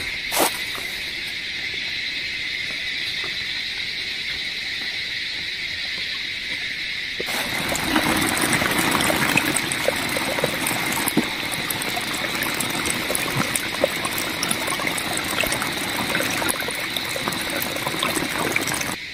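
A steady high insect drone throughout. From about seven seconds in, a small mountain stream trickles and splashes over rocks close by, with scattered small splashes.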